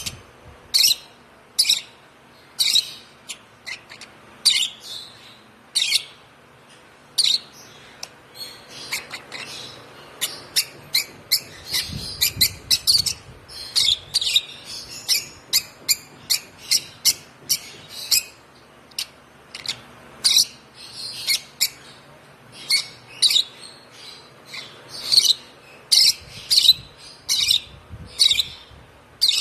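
A month-old hand-fed African lovebird chick chirping: short, sharp, high-pitched chirps repeated in an uneven series, coming faster and in clusters through the middle.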